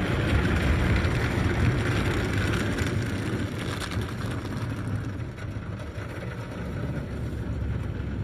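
Water spray and foam pelting a car's windshield and body in an automatic car wash, heard from inside the cabin, over a low steady rumble. The spray hiss eases off about halfway through.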